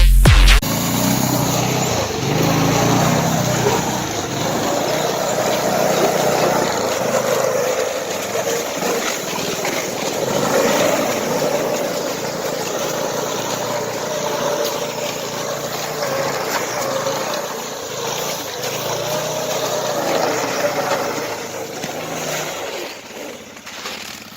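Small 120-class youth snowmobile engine running, its pitch rising and falling as the throttle is worked. A burst of electronic music cuts off about half a second in.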